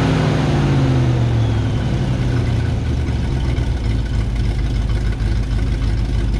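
Ford 460 big-block V8 in a 1950s Dodge M37 military truck, its revs falling back over about the first second and then idling steadily.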